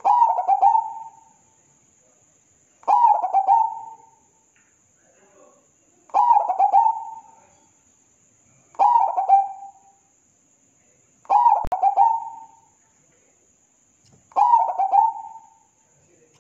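Zebra dove (perkutut) singing: six cooing phrases, each a quick run of notes about a second long, repeated roughly every three seconds.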